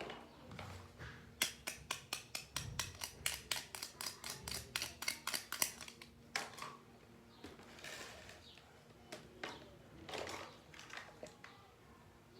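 Small plastic toy pieces handled at close range, with a fast run of crisp clicks, about five a second, for several seconds, then a few scattered taps and rustles.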